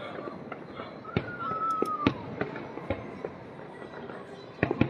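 Aerial fireworks going off: scattered sharp bangs with crackle, and a quick cluster of bangs near the end. A whistling tone about a second long, dropping slightly in pitch, starts about a second in.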